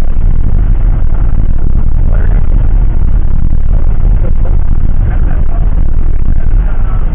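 Loud, steady low rumble of a car being driven, with road and engine noise.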